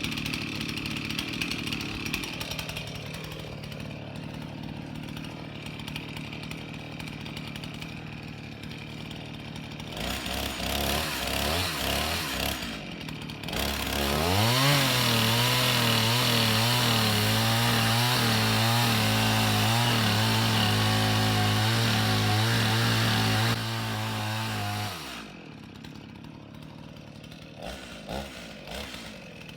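Chainsaw idling, then revved up about halfway through into a steady full-throttle run for roughly ten seconds while it saws into the trunk of a large dead tree, before dropping back to idle.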